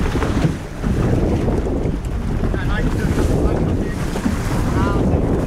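Strong wind buffeting the microphone over a choppy sea, with water rushing and splashing around the boat.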